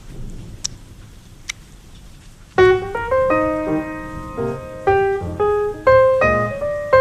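A faint, steady hiss of rain with two short clicks, then solo piano music starts abruptly about two and a half seconds in and plays a melody of sustained notes.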